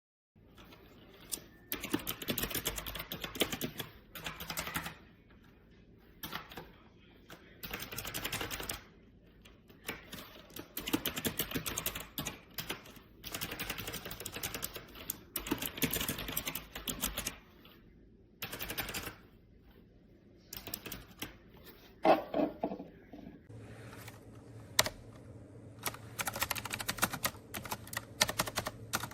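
Typing in bursts on an AULA F2088 mechanical keyboard with clicky blue switches: rapid runs of key clicks with short pauses between them.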